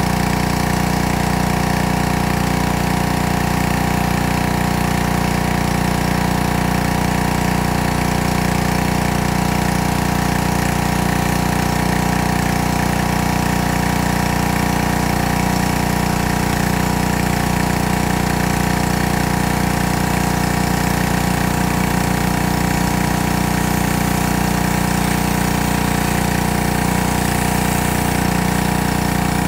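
Pressure washer running steadily, with a regular low pulsing, while a rotary surface cleaner's spinning water jets hiss across wet flagstone.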